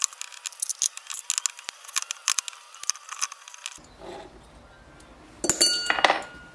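Small metal clinks and ticks of an Allen wrench and cover-plate screws working against a FiTech throttle body as the screws are backed out. A quick run of light clicks fills the first four seconds, and a louder metallic clink with a brief ring comes near the end.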